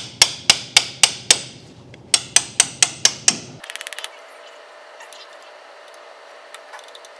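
Hammer striking the end of a combination wrench to loosen a nut on old forklift brake hardware: two runs of about six sharp metal blows, roughly four a second, with a short pause between. A quick run of light clicks follows just after halfway, then only low background.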